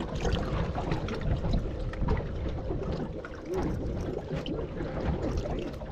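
Water splashing and trickling in a boat's live bait well as a hand reaches in and grabs a baitfish.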